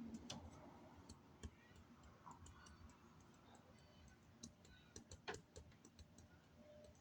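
Near silence, with faint scattered clicks and ticks at irregular intervals.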